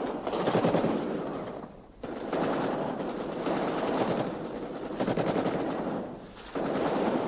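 Long runs of rapid automatic gunfire, broken by short pauses about two seconds in and about six seconds in.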